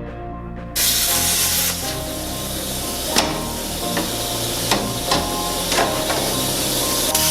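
Plasma cutter starting up about a second in and hissing steadily as it cuts sheet metal, with a few sharp cracks along the way.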